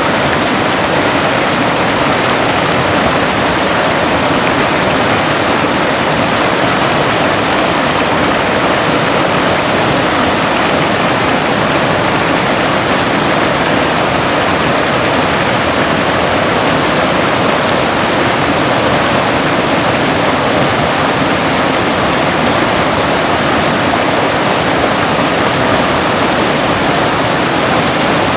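River water rushing steadily and loudly after a typhoon, an unbroken even roar of flowing water.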